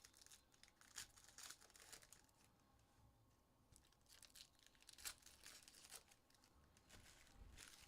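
Faint, scattered crinkling and tearing of trading card packaging as it is torn open by hand, a few brief crackles every second or so.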